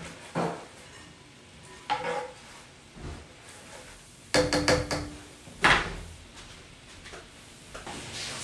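Silicone utensil stirring and scraping sauce in a nonstick electric skillet, with scattered knocks against the pan. A quick run of taps comes about four and a half seconds in, and the loudest knock a little later.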